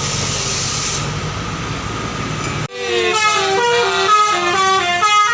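A bus engine running with road noise, then, after an abrupt cut about two and a half seconds in, a bus's basuri 'telolet' multi-tone horn playing a quick tune of stepped notes.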